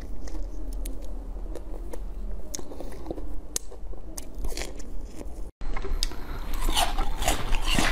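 Close-miked biting and chewing of fresh strawberries, with scattered wet clicks and crunches. About five and a half seconds in the sound cuts out briefly, then a louder, denser crunching and crackling follows as a hard, translucent pink frozen treat is bitten.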